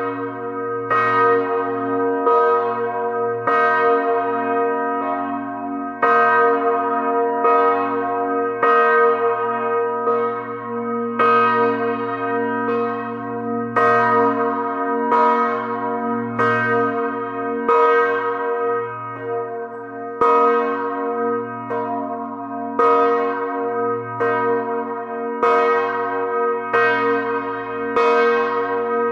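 Memorial bell tolling slowly and steadily, with evenly spaced strikes a little over a second apart, each ringing on into the next.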